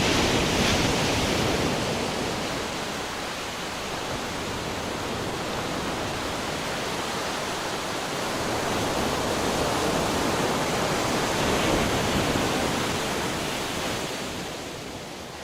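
Sea waves breaking and washing up the shore: a continuous rush of surf that swells about two-thirds of the way through, then fades out near the end.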